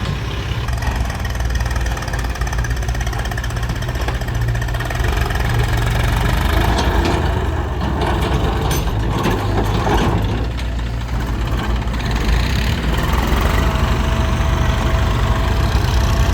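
Heavy diesel engine of a tractor or backhoe running steadily with a low throb, swelling a little midway. A steady thin tone joins near the end.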